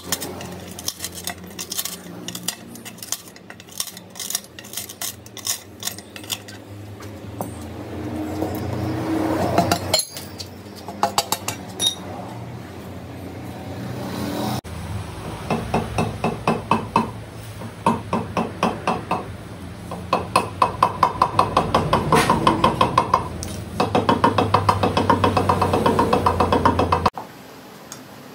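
Glass chips cracking and clinking as pliers break the waste out of a scored circle in 10 mm glass: many sharp clicks and small snaps. About halfway this gives way abruptly to music with a steady pulse.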